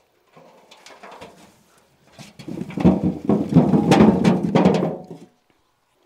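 Potatoes tipped from a wicker basket tumbling into a metal wheelbarrow: a dense clatter of knocks and thuds lasting about three seconds, starting about two seconds in after some faint rustling.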